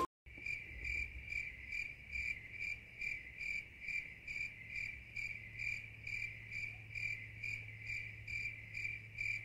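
Cricket chirping in a regular rhythm, about two chirps a second, over a faint steady low hum.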